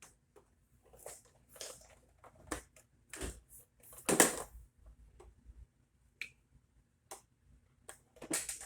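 Irregular crackles, clicks and short noisy bursts over a faint steady hum, the loudest about four seconds in: a broken-up broadcast feed carrying a flash flood warning, cutting in and out between fragments of the message.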